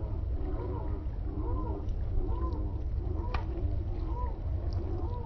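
A steady series of honking animal calls, about two a second, over a low rumble of wind on the microphone.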